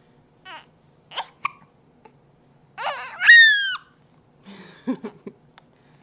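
Repeated short, sharp hiccups, with a loud high squealing cry that falls in pitch in the middle.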